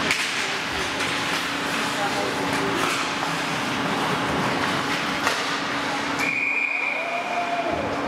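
Ice hockey in play: sticks clacking and skates scraping, with shouting voices over a steady hum. About six seconds in, a single steady whistle blast lasts about a second and a half, a referee's whistle stopping play.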